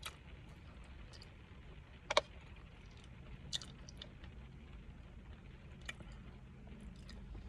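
A person chewing soft, moist cake close to the microphone, with wet mouth clicks and smacks; the sharpest smack comes about two seconds in, a few fainter ones later. A low steady hum lies underneath.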